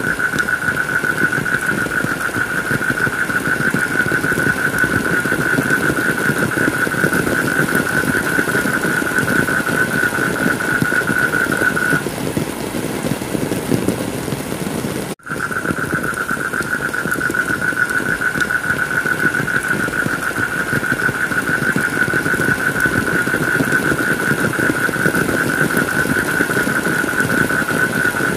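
Steady heavy rain, with a high, steady whine-like tone running over it. The tone stops about twelve seconds in. The whole sound cuts out for an instant about fifteen seconds in, and the tone then returns.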